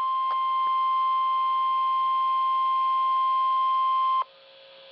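Midland WR100 weather radio sounding the NOAA Weather Radio warning alarm tone, a loud steady 1050 Hz tone announcing a severe thunderstorm warning. It cuts off suddenly about four seconds in, leaving a faint hum.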